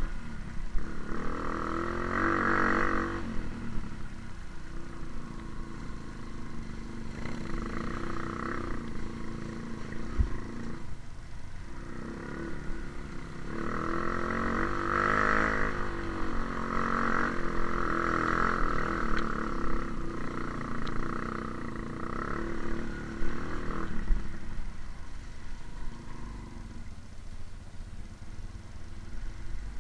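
Motorcycle engine running on a trail ride, its revs rising and falling as it is ridden.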